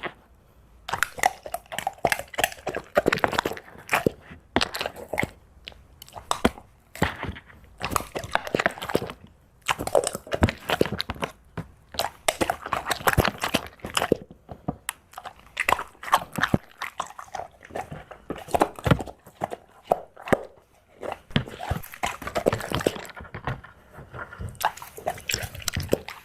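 A dog eating its breakfast: bursts of crunching and chewing with short pauses between mouthfuls.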